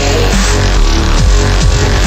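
Loud backing music with heavy bass and several quick falling bass sweeps.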